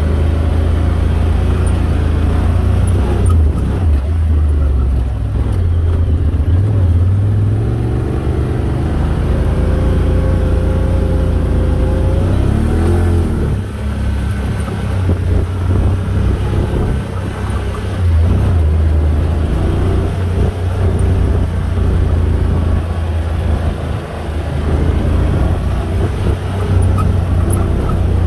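Quad ATV engine running steadily across sand, with a strong low rumble; about 12 to 13 seconds in, the revs dip and rise again.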